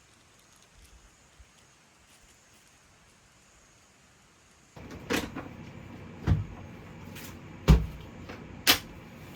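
A quiet start, then about five sharp knocks and clacks at uneven intervals over the last few seconds, like hard objects being set down or handled.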